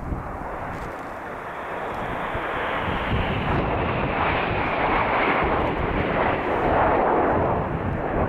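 Jet noise from a formation of BAE Hawk T1 trainers, each with a single Adour turbofan, flying past. It is a dense rushing noise that grows louder over the first half and stays strong to the end.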